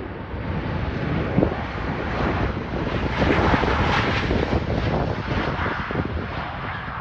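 Jet airliner's engines passing, a steady rushing noise that swells to its peak about halfway through and then eases off.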